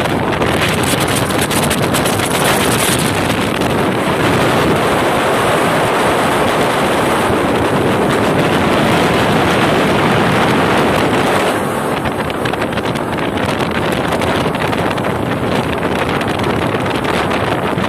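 Motorboat under way on open water: engine and rushing water noise, with heavy wind buffeting the microphone. The noise eases slightly about two-thirds of the way through.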